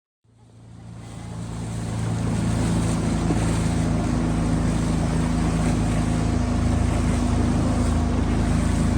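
A motorboat engine running steadily under a wash of water and wind noise, fading in over the first couple of seconds and then holding an even hum.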